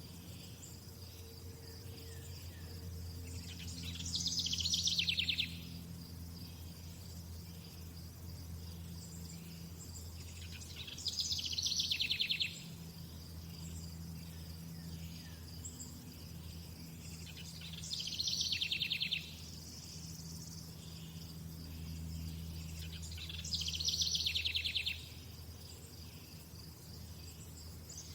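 A bird singing a short, fast trilled phrase four times, about every six or seven seconds, each phrase sliding slightly downward. Underneath is a steady high chirring of insects, crickets by the sound of it.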